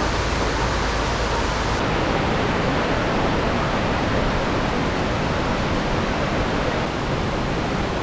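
Rushing mountain stream: a loud, steady rush of white water over rocks. The sound shifts slightly about two seconds in, at a cut to another spot along the stream.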